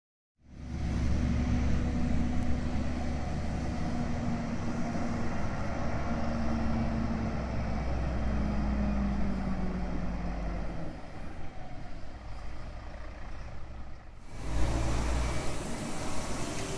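Heavy diesel truck engine running with a deep, steady rumble. The sound changes abruptly about fourteen seconds in, then the engine carries on.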